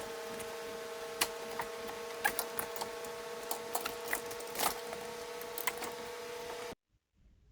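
Scattered clicks, snaps and knocks of plastic door-card clips and trim being pried loose from a Suzuki Carry kei truck door, over a steady hum. The sound cuts off suddenly near the end.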